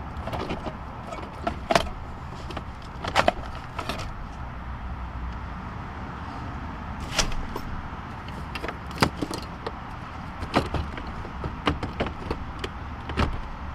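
Scattered clicks and knocks of hand tools and plastic dash trim being worked loose around a car's radio, at irregular intervals over a steady low background hum.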